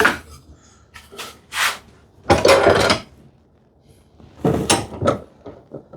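Plywood drawer bottom scraping against wood: a knock, then three scraping strokes as the panel is test-fitted and trimmed with a hand plane to slide into the drawer.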